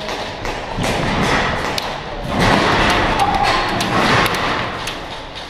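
Airsoft guns firing during a game: a quick string of sharp pops and BB hits on plywood barricades, echoing in a large warehouse hall, with a louder, denser rush of noise for about two seconds near the middle.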